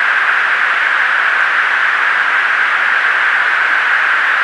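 Steady, even static hiss of an aircrew's cockpit intercom line between remarks.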